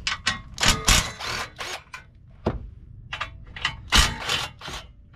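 Irregular metallic clanks and knocks, about a dozen, some with a short ring, as hand tools and hardware are handled while bolts are taken off a truck's front end.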